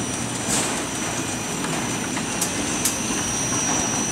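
Steady machinery hum with a thin high whine, broken by a few short ticks about half a second, two and a half and three seconds in.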